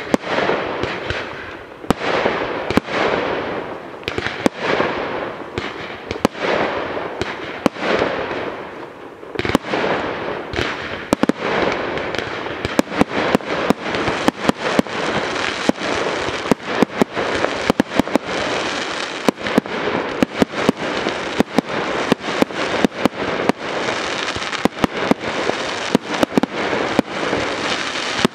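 Aerial fireworks display: shells launching and bursting in quick succession, sharp bangs over a continuous hiss and crackle. For the first ten seconds or so, hissing rushes falling in pitch come about once a second; after that the bangs come denser and faster.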